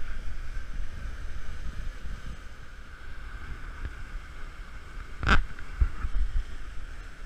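Whitewater of a steep creek waterfall rushing steadily, with wind rumbling on the microphone. A single sharp knock cuts through about five seconds in, followed by a few dull thumps.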